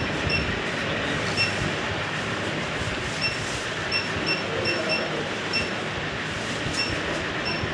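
Short electronic key beeps from an autorefractometer's control panel, about a dozen at uneven intervals as its menu buttons and joystick are pressed, over a steady background noise.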